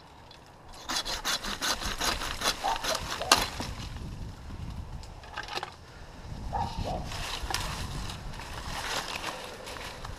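Hand pruning saw rasping through an oak limb, wood scraping and crackling, in two bouts with a short lull in the middle.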